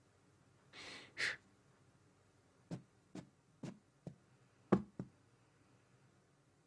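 Faint cartoon sound effects: a short breathy exhale about a second in, then six soft, irregular taps over the next few seconds.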